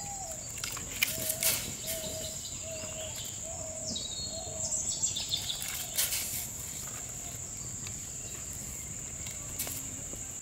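A steady high-pitched drone of crickets, with a low call repeating roughly every half second through the first half. Soft splashes and clicks come around five to six seconds in, as chopped vegetables are dropped into a pot of simmering broth.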